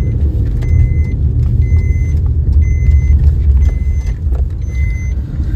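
Car cabin: the steady low rumble of a car being driven, with a short electronic beep repeating about once a second.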